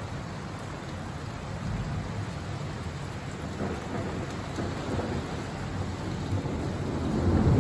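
Steady rain during a thunderstorm, with a low rumble of thunder that swells louder near the end.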